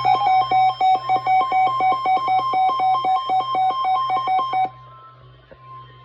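Emergency weather-alert attention tone heralding a warning broadcast on NOAA Weather Radio. It is a loud, steady electronic alarm of two tones with a fast, even pulsing, and it cuts off suddenly about five seconds in, leaving a faint hiss.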